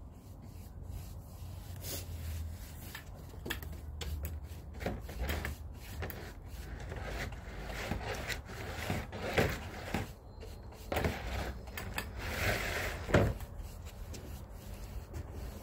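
Deck-stain applicator on a long pole being rubbed back and forth over wooden porch decking boards: a run of irregular rubbing and scraping strokes, stronger in the second half, over a low steady rumble.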